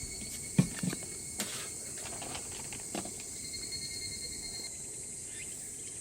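Steady high insect chorus singing without a break, with a few short knocks and clicks, the loudest about half a second in.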